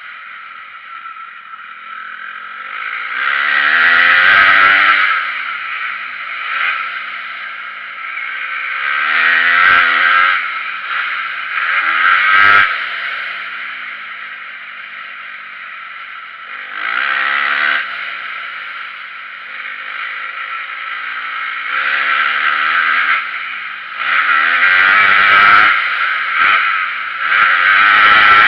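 Dirt bike engine revving hard and backing off again and again as it is ridden around a motocross track, in repeated loud surges a few seconds apart, with a sharp clack about twelve seconds in.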